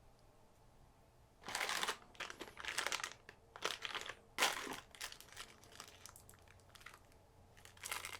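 Crinkling of keyboard packaging being handled and unwrapped: irregular rustles starting about a second and a half in, densest for the next few seconds, then sparser, with one more burst near the end.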